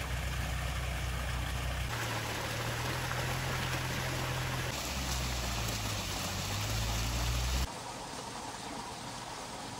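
Water splashing down a small stepped stone waterfall into a pond: a steady rushing that grows louder for a few seconds, then drops away suddenly near the end.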